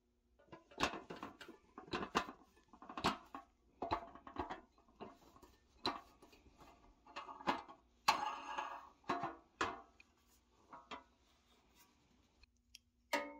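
Small screw clamp being turned and handled on a pressed-steel toy truck bed: an irregular series of sharp metal clicks and clinks, some ringing briefly, with a longer scraping rattle about eight seconds in.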